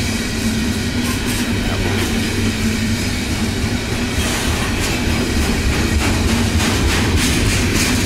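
Freight train cars rolling past close by: a steady rumble of steel wheels on the rails, with scattered clicks as the wheels cross rail joints.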